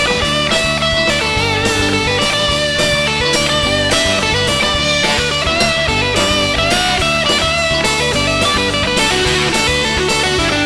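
Instrumental rock music: an electric guitar plays a lead melody with bending notes over a steady drum beat.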